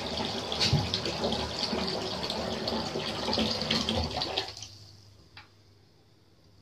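Water running from a bathtub tap into the bath, cutting off suddenly about four and a half seconds in, followed by a faint tick.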